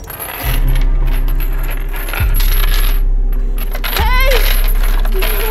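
Heavy electrical clunks as banks of overhead fluorescent lights switch on, three in a row, each followed by a deep steady hum. A brief wavering cry comes just after the third.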